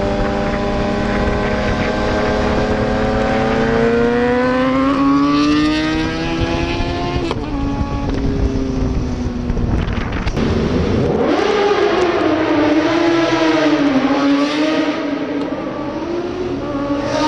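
Sportbike engines with aftermarket exhausts accelerating hard. First a Kawasaki Z1000 with an Akrapovic exhaust and a Benelli 300 pull away with a long, slowly rising engine note. After a cut about seven seconds in, a Kawasaki ZX-10R inline-four with an SC-Project exhaust revs sharply up to a high, held note.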